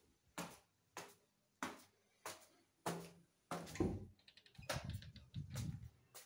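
Footsteps on a hard floor in an empty room, a sharp knock about every 0.6 seconds, with a quick run of small clicks a little past the middle.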